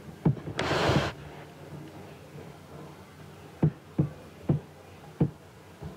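Sharp clicks of a computer mouse: one near the start, then a run of about five between the fourth and sixth seconds. A short hiss of noise comes about half a second in, over a faint low hum.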